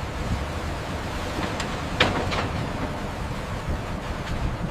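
Steady low rumble of construction machinery, with a sharp knock about two seconds in and a second just after.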